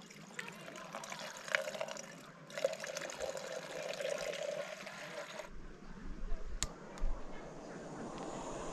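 Water poured from a plastic bottle into a small metal camp pot. The pour pauses briefly partway and stops about five and a half seconds in. After that comes a low rumble of wind on the microphone and two light clicks.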